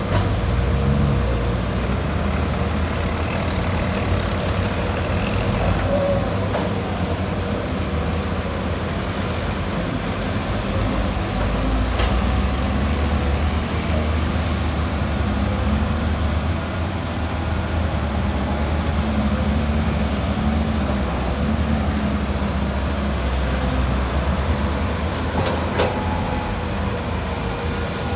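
Heavy diesel engines of a hydraulic excavator loading soil into a ten-wheel dump truck, running steadily, with a couple of sharp knocks about twelve seconds in and near the end.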